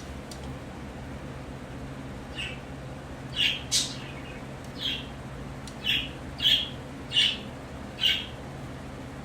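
Birds calling in the background: short, sharp chirps, about eight of them, starting a couple of seconds in and coming irregularly. Underneath them runs a steady low hum.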